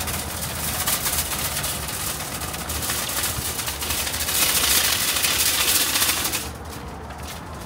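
Wire shopping trolley rattling as it is pushed along wet concrete, loudest a little past the middle and dropping off sharply near the end.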